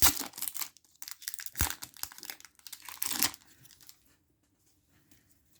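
Foil wrapper of a Pokémon booster pack crinkling and tearing as it is pulled open by hand, with one soft thump about one and a half seconds in. The crinkling stops a little after three seconds.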